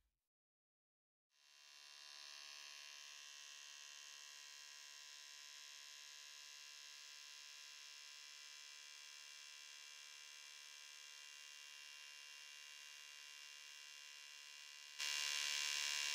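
Faint steady electronic hum made of many steady high tones, coming in about a second and a half in after silence. It jumps louder about a second before the end.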